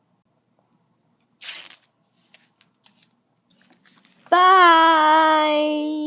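A person imitating a dolphin with their voice: a short breathy hiss, a few faint clicks, then, about four seconds in, a loud high-pitched squeal held for nearly two seconds.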